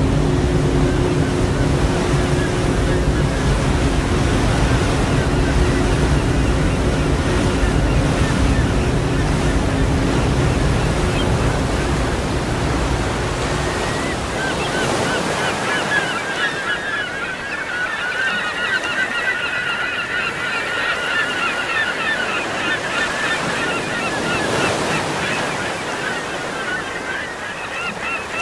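Ocean surf washing steadily on the beach. Under it runs a low steady hum that fades out about halfway through. From then on, a flock of birds calls over the surf in many rapid, overlapping honking calls.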